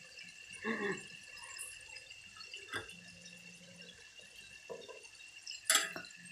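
Chicken livers and gizzards frying in a steel pan in their own juices: faint bubbling and popping, with a few short clatters of a spatula against the pan, the loudest just before the end.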